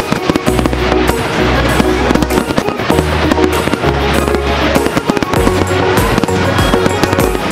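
Music with a deep bass line that changes note every second or so, mixed with the repeated bangs and crackle of aerial fireworks bursting.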